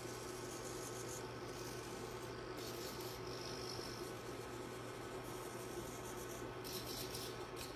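Servo motors of an acrylic meArm robot arm whirring in short spells, about three seconds in and again near the end, over a steady low electrical hum.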